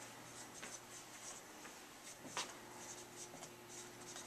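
Dry-erase marker squeaking and scratching on a whiteboard in short, quick strokes as words are written, with one sharper tick a little past halfway. A faint steady hum sits underneath.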